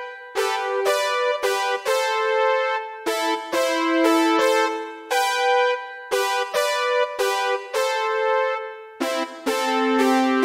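Yamaha Genos keyboard playing an 80s-style synth brass figure in harmonised thirds and sixths, slowly, in short phrases of quick chords with a lower note sounding underneath near the end.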